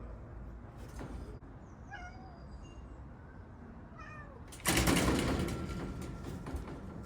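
A cat giving short meows, about two seconds in and again near four seconds, followed by a sudden loud rustling knock about four and a half seconds in that fades over a second or two.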